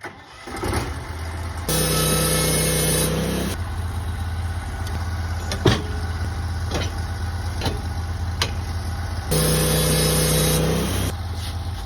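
Sawmill engine idling steadily. It comes in at the start, and twice (about two seconds in and again near ten seconds) a louder steady whine with hiss joins it for a second or two. A few sharp knocks sound in between.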